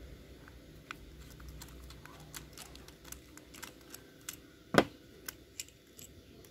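Scattered light clicks and taps from small carburetor parts and tools being handled while the pilot jet is checked, with one louder knock about five seconds in.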